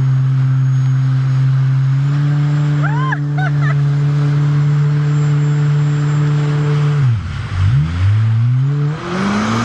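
Jet ski engine running at a steady idle, then about seven seconds in its pitch drops sharply and swings back up as the throttle is worked and it pulls away.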